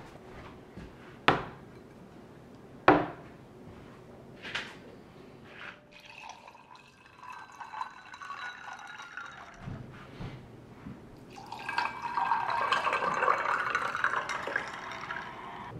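Two sharp clinks of glass, then liquid poured into a glass container in two pours, the second longer and louder.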